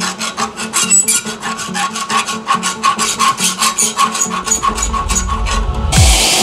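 Hand file rasping back and forth across a steel bar clamped in a bench vise, in quick even strokes, about five a second. Near the end the filing stops and a steady hiss cuts in.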